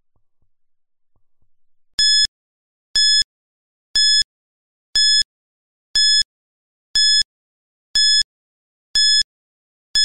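Countdown timer's ten-second warning: short high-pitched electronic beeps, one each second, starting about two seconds in. Before them there is a faint heartbeat-like pulse.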